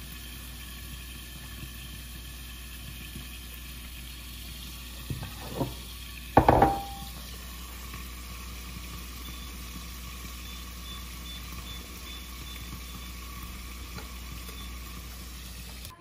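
Pollock fillets sizzling steadily as they fry in a lidded nonstick frying pan. A short knock comes about five and a half seconds in and a louder clink about six and a half seconds in.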